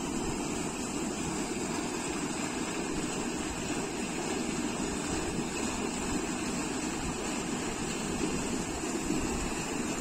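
Water of a small canal rushing and churning over rocks into white water, a steady, even rush with no breaks.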